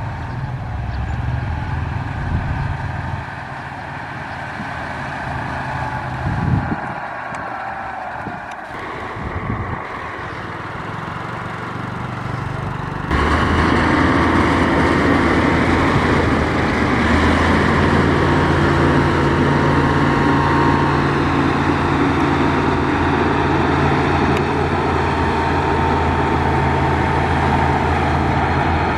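Caterpillar 140H motor grader's diesel engine running steadily. About halfway through it suddenly becomes louder and stays that way.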